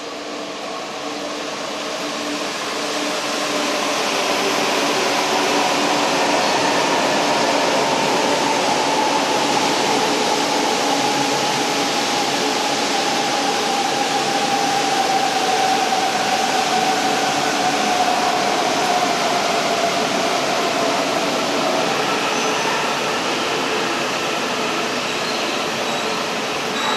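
E4 series Max double-decker Shinkansen running slowly past on wet track with a steady rushing rumble that swells over the first few seconds. Through the middle, a faint whine slowly falls in pitch as the train slows.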